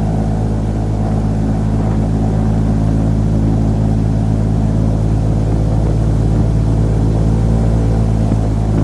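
Airboat's engine and big air propeller running at a steady cruise: a loud, even drone with no change in pitch.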